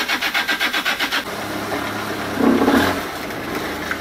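Longtail boat engine chugging at idle with a rapid, even beat. About a second in it settles into a steadier low running note, with a louder surge past the middle as the boat gets under way.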